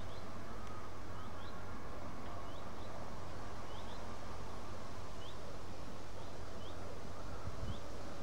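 A small bird giving short, high, rising chirps, roughly once or twice a second, over a steady low rumble and hiss of outdoor background noise.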